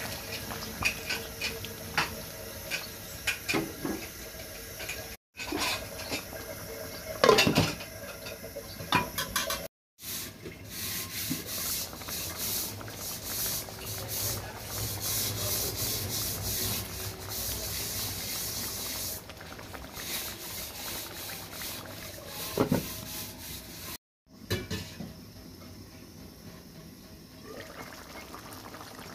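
Pabda fish curry bubbling as it simmers in a pan, with scattered crackles and a few knocks of utensils against the pan. The sound drops out abruptly three times, at about 5, 10 and 24 seconds in.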